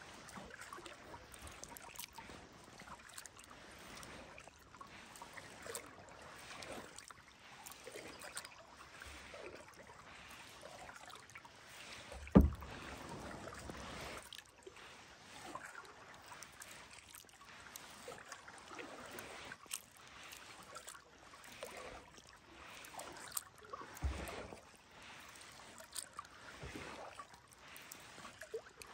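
Kayak being paddled: water swishing and trickling off the paddle blades with each stroke. A loud low thump comes about twelve seconds in and a softer one later.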